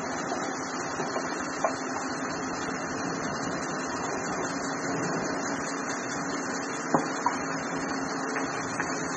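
Dust-suppression rain gun spraying: a steady rushing noise of the water jet with a low machine hum beneath it. A few sharp knocks cut through, one under two seconds in and a close pair about seven seconds in.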